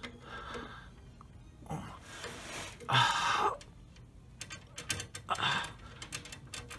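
A man breathing out heavily three times, the loudest about three seconds in, with faint metal clicks from tube-bending pliers working a steel brake line.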